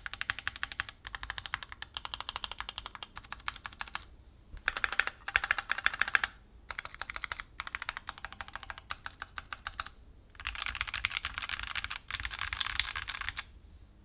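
Typing on a Keychron Q4 60% aluminium mechanical keyboard with Gateron G Pro Red linear switches and double-shot PBT OSA keycaps: rapid key clicks in bursts with short pauses. There are louder, faster runs about a third of the way in and again near the end, and the typing stops just before the end.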